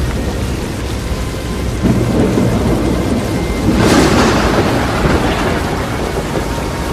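Thunderstorm: steady rain under a low rumble of thunder, building about two seconds in, then a loud crack of thunder about four seconds in that rolls away over the next couple of seconds.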